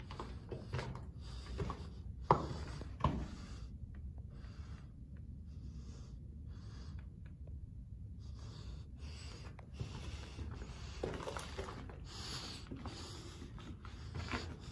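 Person moving through a rocky mine tunnel: repeated breaths and scuffing steps on rock and grit, with two sharp knocks about two and three seconds in.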